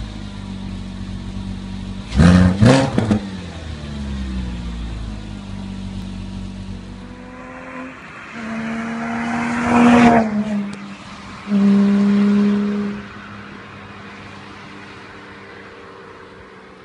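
Porsche Cayman 987 flat-six breathing through an SW-Exhaust stainless steel sport rear muffler. It idles, is blipped sharply twice about two seconds in, and settles back to idle. Later the car drives past: the exhaust note swells as it approaches, peaks with a drop in pitch as it goes by, holds a loud steady drone for a second or so, then fades away.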